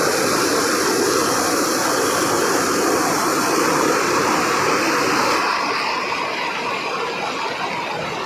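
Steady rush of water from a small waterfall cascading over rocks into a stream. The hiss softens a little about five and a half seconds in.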